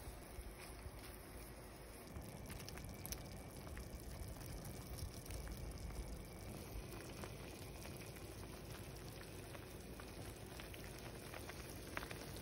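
Hot pot broth simmering and bubbling in a metal pot on a portable cooktop, with a few light clicks of a ladle against the pot.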